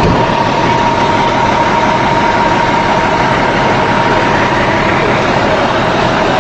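An engine running steadily with a constant high whine.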